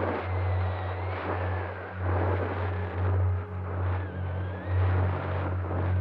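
Onboard sound of a Bixler 3 RC plane in flight: the brushless outrunner motor and propeller whining over wind rush, the whine's pitch sliding up and down with throttle and the loudness swelling and easing about once a second.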